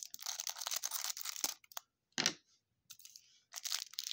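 Clear plastic wrap around a stack of trading cards being snipped with scissors and peeled off, crinkling and crackling in several bursts with short pauses between.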